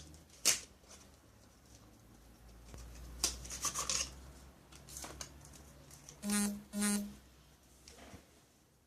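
Handling noise from a plastic YJ windmill puzzle cube and its packaging: scattered scratching and rustling strokes with a sharp click about half a second in and a busier patch of scraping a few seconds in. Two short pitched sounds come close together about two-thirds of the way through.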